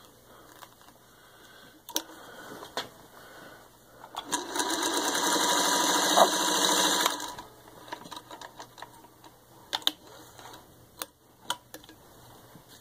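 1953 Singer 301A sewing machine running and stitching through four layers of thin, soft leather for about three seconds, starting about four seconds in. A few clicks and knocks come before and after as the leather is handled.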